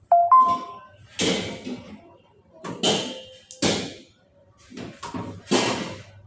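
A string of sharp knocks and bangs, about six, spaced unevenly. The first, right at the start, has a brief ringing tone. These are the sounds of hand work on a homemade bird cage.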